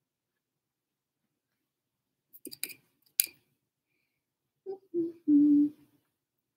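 Silence at first, then a few faint clicks and one sharper click. Near the end, a woman hums: two short hums, then a steadier held note of about half a second.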